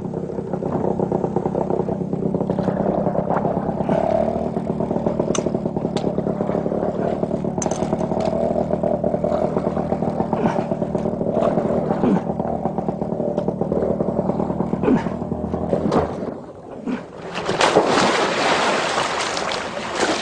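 A motor engine running steadily with some clatter, stopping about sixteen seconds in. It is followed by a few seconds of loud rushing noise.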